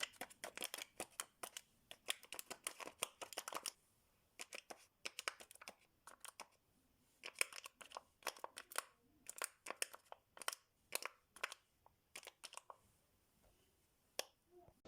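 Folded origami paper pop-it toy being pressed: quick, crisp paper clicks and crinkles in flurries with short pauses between.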